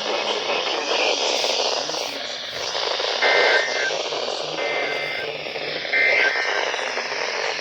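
Noisy, static-filled NOAA Weather Radio reception with three short two-tone EAS data bursts about a second and a half apart. These are the end-of-message code that closes the alert.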